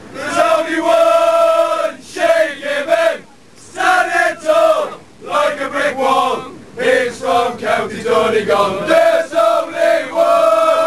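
A crowd of male football supporters chanting and singing together in a crowded tram, loud sung phrases with short breaks between them.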